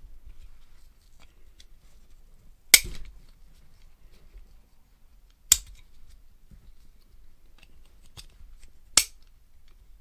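Black plastic side-release buckle on a dog harness being snapped shut and unclipped several times, each a sharp, quite noisy click about three seconds apart, the loudest about three seconds in. This click close to the ear is one reason dogs come to dislike having a harness put on.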